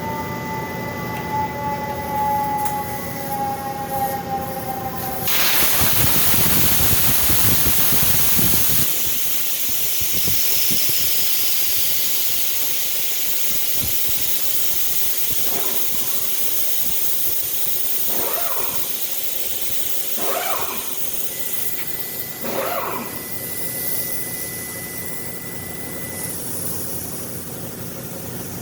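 A steady machine hum with a tone that slowly falls, then about five seconds in a sudden loud hiss that eases after a few seconds and keeps on steadily, with a few knocks near the end.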